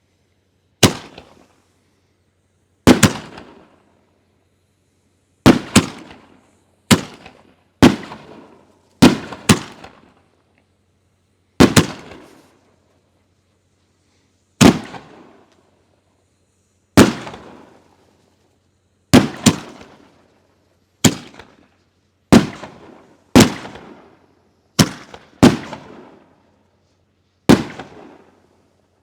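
Flawless 5-inch canister firework shells being fired in sequence: about eighteen sharp booms at uneven intervals of one to three seconds, each with a short ringing tail.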